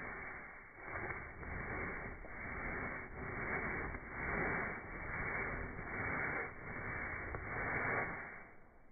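Bristle paintbrush scrubbing back and forth over a rough, textured plaster-and-paint surface, a scratchy swish that swells with each stroke about once a second.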